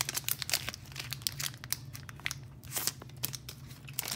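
Foil wrapper of a Pokémon booster pack crinkling and crackling as it is torn open and handled, with many irregular sharp crackles.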